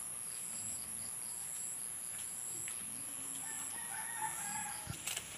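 A rooster crows once, about three and a half seconds in, for roughly a second. Underneath runs a steady high-pitched drone with a short high chirp repeating about every half second.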